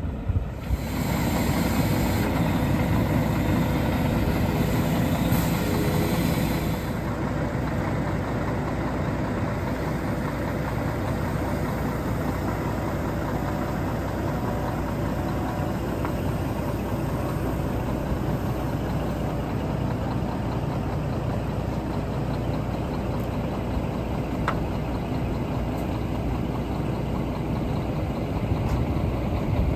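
Scania P380 truck's diesel engine running steadily at idle. It is louder, with an added hiss, for the first several seconds, then settles a little lower.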